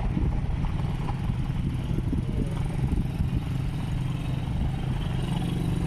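Motorcycle engine running steadily at a low, even speed.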